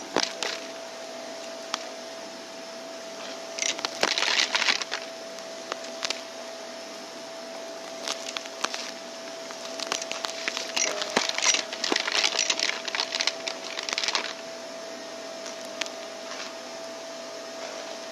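Vacuum cleaner running with a steady whine while it picks up crunchy debris, which crackles in bursts: once about four seconds in, again around eight seconds, and in a longer run from about ten to fourteen seconds.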